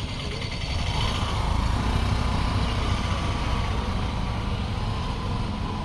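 Motorcycle running steadily while riding on the road, with a low, even rumble underneath.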